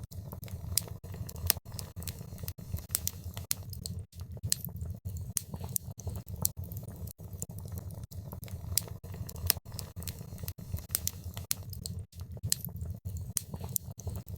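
Wood fire crackling in a fireplace: frequent sharp, irregular pops and snaps over a steady low rumble of the flames.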